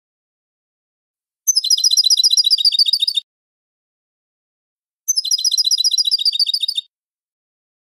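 European goldfinch singing two phrases of rapid, repeated high notes, about eight a second, each phrase lasting under two seconds, with a pause of a couple of seconds between them.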